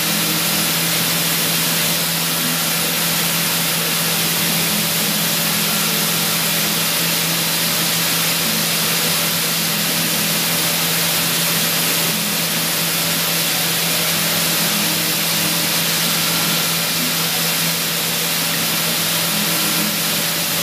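High-speed CNC milling spindle turning a miniature ball-nose end mill at 20,000 RPM while it cuts hardened 50 HRC medium-carbon steel. It is a steady hiss with a low, constant hum underneath.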